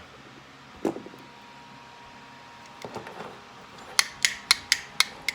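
Small metal motor-mount parts being handled and knocked together: one light knock about a second in, then near the end a quick run of sharp metallic clicks, about four a second.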